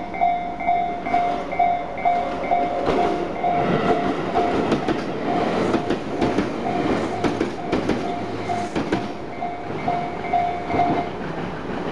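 Japanese electronic level-crossing warning bell ringing in a steady repeating ding, about two strokes a second, and stopping near the end. A Tobu Isesaki Line train runs over the crossing from about three seconds in until about ten seconds in, its wheels clacking over the rail joints.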